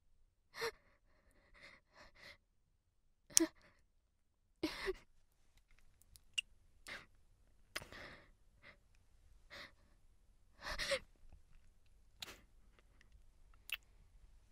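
A voice actor's scattered breaths, sighs and gasps, voiced as someone crying: about a dozen short breathy sounds at irregular gaps, with near silence between them.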